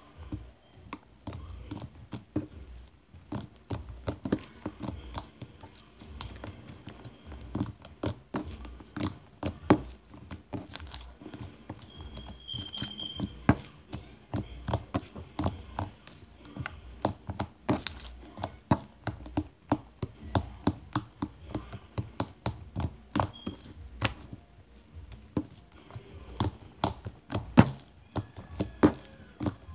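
Wet, watered-down slime being kneaded, folded and pressed by hand on a table: an irregular run of short sticky clicks and pops, several a second.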